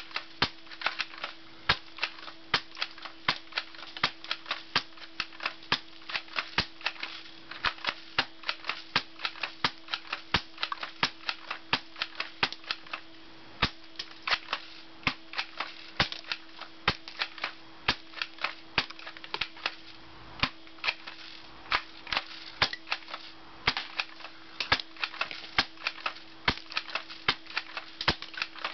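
Airsoft shotgun being cocked and fired again and again at a plastic DVD case: a fast, uneven run of sharp clacks, about two to three a second, from the gun's action and the BBs striking the case. A steady low hum sits underneath.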